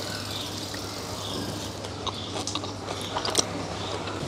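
Someone eating thick rice noodles with chopsticks: a scatter of small clicks and slurps from about two seconds in, over a steady background hum.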